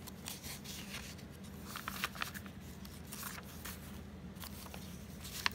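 Paper pages of a handmade journal being handled and turned by hand: soft scattered rustles and light paper taps, with a sharper click just before the end, over a faint steady low hum.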